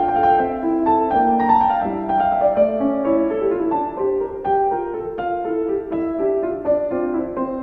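Piano music: a steady flow of notes, several to the second.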